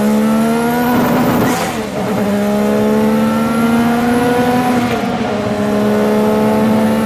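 Ferrari F1-87's 1.5-litre twin-turbocharged V6 at full throttle, heard onboard. Its pitch climbs steadily through the gears, with upshifts and drops in pitch about a second in and again about five seconds in.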